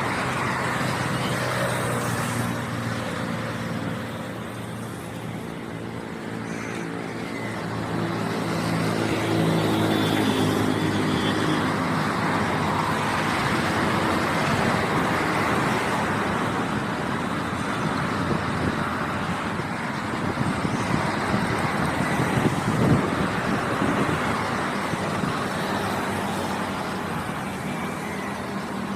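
A motor vehicle's engine running with steady road noise, its engine hum strongest in the first half and again near the end.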